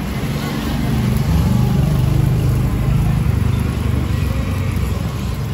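A motor vehicle engine running close by, swelling louder about a second in and easing slightly toward the end. Under it is the steady hiss of kulchas frying in butter on a flat tawa.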